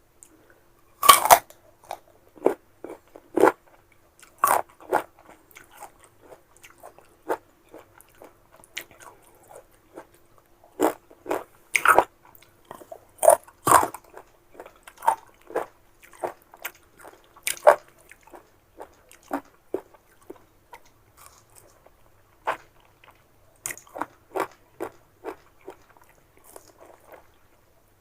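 Close-miked crunching bites and chewing of crisp young unripe mango, irregular crunches with a few loud bites.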